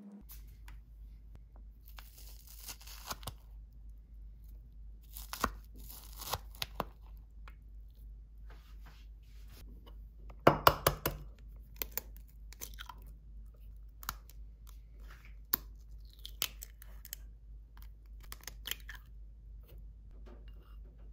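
Imitation crab sticks torn into shreds by hand, a soft ripping in short stretches. Then eggs are cracked into a ceramic bowl: a cluster of sharp knocks about halfway through, the loudest sound, followed by scattered clicks of shell.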